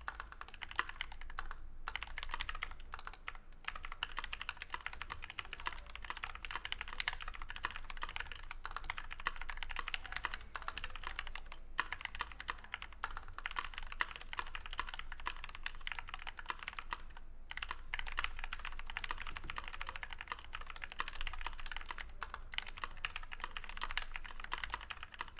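Steady fast typing on a KBD67 MKII mechanical keyboard with Gateron Black Ink linear switches lubed with Krytox 205g0, PBT keycaps, and foam in the plate and case, with a few short pauses.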